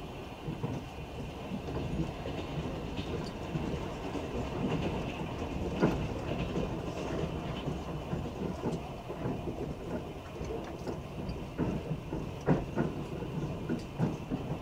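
Passenger train running at speed, heard from inside a carriage: a steady rumble of wheels on rails with irregular sharp clicks of the wheels over rail joints, the loudest about six seconds in and a cluster near the end.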